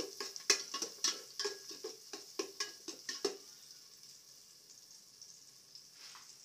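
Garlic, onion and ginger sautéing in oil in a metal pot, a sizzle, while a utensil scrapes and taps against the pot several times a second; the stirring stops about three seconds in, leaving the steady sizzle.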